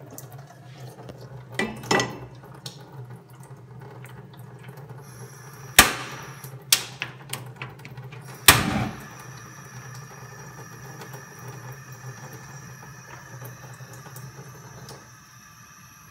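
A metal cooking pot knocks and clanks onto the pan support of a gas hob, then a sharp click as the burner knob is turned to light the flame. A low steady hum runs underneath and stops near the end.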